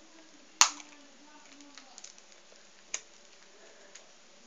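Two sharp clicks about two seconds apart, the first one loud, among a few faint ticks.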